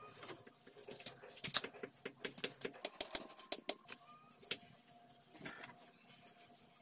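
Faint, irregular light clicks and taps of small metal parts, wires and a soldering iron being handled on a wooden workbench, busiest in the first half and thinning out after.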